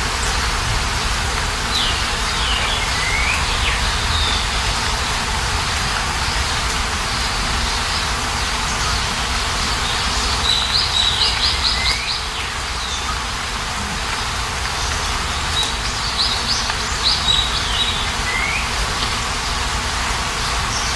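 Songbirds chirping and calling over a steady hiss, with short notes sweeping downward and a quick run of repeated notes about halfway through.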